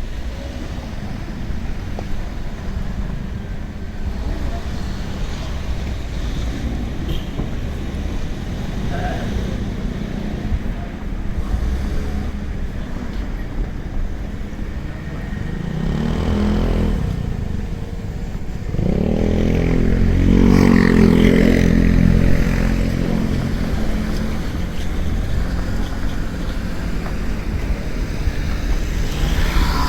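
Steady rumble of passing vehicles, with one going by about halfway through and a louder one shortly after, lasting a few seconds.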